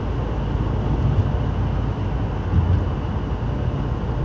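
Steady road noise of a moving car heard from inside the cabin, a low tyre and engine rumble.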